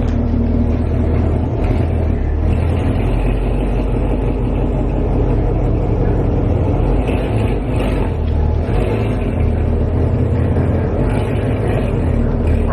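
Supercharged 2016 Chevrolet Camaro SS's 6.2-litre V8 running at a steady speed.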